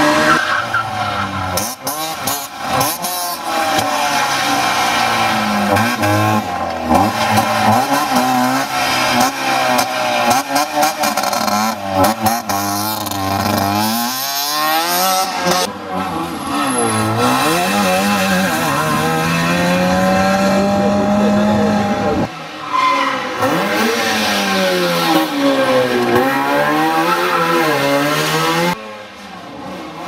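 Trabant rally cars racing past one after another, their small engines revving up and falling back in pitch again and again as they change gear, with sudden jumps from one pass to the next.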